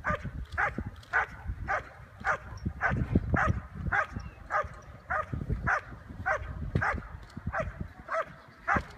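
A dog barking in a steady rhythm, about two barks a second, at the protection helper: the hold-and-bark of IPO protection work, in which the dog guards the helper with barking until the handler comes up.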